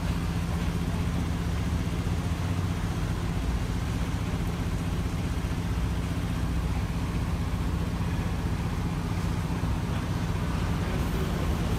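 Engine of a compact tracked spider crane running steadily, a constant low hum.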